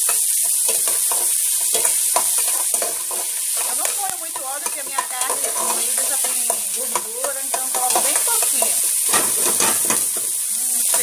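Chopped garlic, onion and green bell pepper sizzling steadily in hot oil in an aluminium pot. A metal spoon stirs them, scraping and clicking against the pot.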